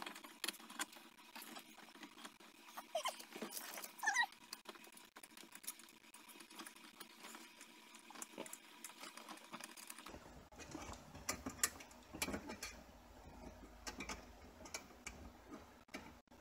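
Faint, scattered clicks, taps and rustling of hands handling car-stereo install parts in a dashboard opening, with a couple of short squeaks about three to four seconds in.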